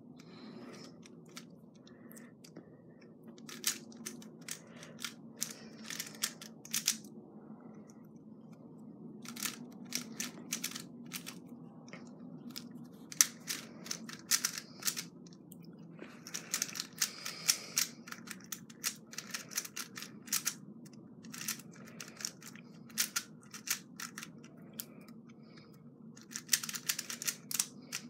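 Rubik's cube being turned quickly by hand during a solve: rapid plastic clicking and clacking of the layers, in bursts of quick turns separated by short pauses.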